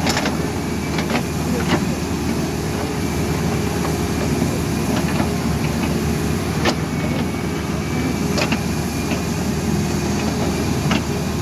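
Caterpillar backhoe loader's diesel engine running steadily, with a handful of sharp knocks scattered through it.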